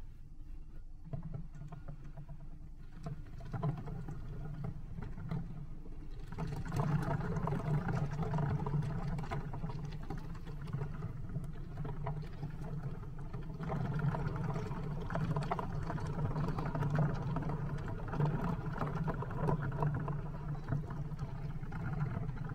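Hands squeezing and kneading a balloon packed with thousands of water beads (orbeez), the wet beads squishing and clicking against one another and the rubber. The sound grows louder about six seconds in.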